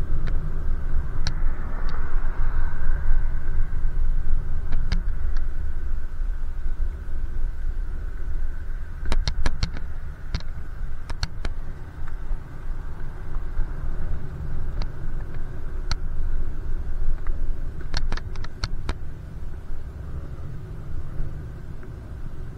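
Steady low rumble of wind and road noise from riding a bicycle, with scattered sharp clicks and ticks, several in quick succession about nine seconds in and again near eighteen seconds.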